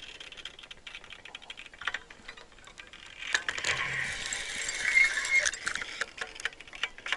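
Spinning fishing reel being wound in spells, its gears whirring, broken by scattered clicks and rattles of handling the rod and line.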